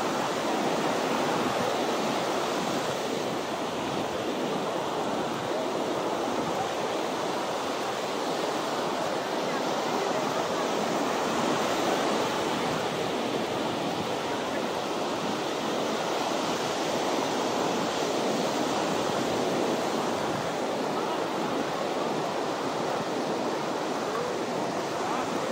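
Ocean surf washing onto a beach in a continuous, steady rush.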